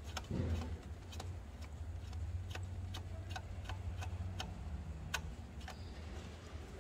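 Sharp metallic clicks, roughly two a second and unevenly spaced, from hand tools working to remove a metal coolant hose in a car's engine bay. A duller knock comes about half a second in, and a steady low hum runs underneath.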